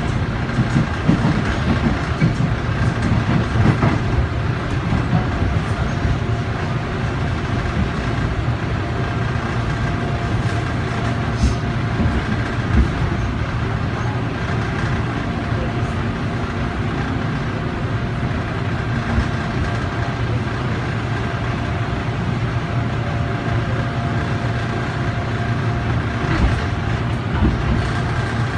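Korail 3000-series electric train heard from inside the passenger car while running: a steady rumble of wheels and car body with a faint, steady whine above it.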